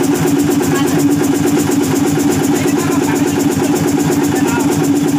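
Hino EM100 six-cylinder diesel engine running steadily at idle with an even, rapid beat, on its first run after sitting unused for four years.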